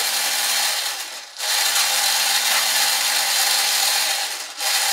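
Geared electric slewing drive of the Robbe Norderney model ship's deck crane whirring as it swings the crane arm with the daughter boat hanging from it, a steady rasping whir with a faint hum under it. It stops briefly about a second in, runs again, and pauses once more near the end.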